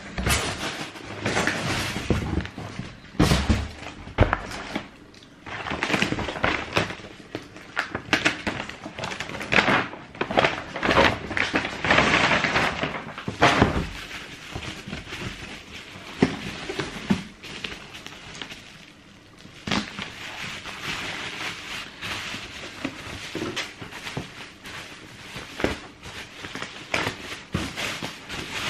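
Packaging being handled: rustling and crackling of plastic and paper wrapping with scattered knocks and thuds, and bubble wrap crinkling near the end.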